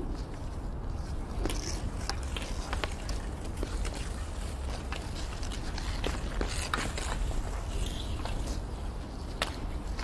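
Kids playing hockey: sharp, irregular clacks and knocks of hockey sticks over a low steady rumble.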